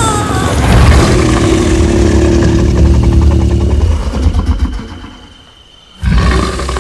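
Dinosaur roar sound effect for a Tyrannosaurus rex: a long, deep roar that dies away over a couple of seconds. Near the end, loud music starts abruptly.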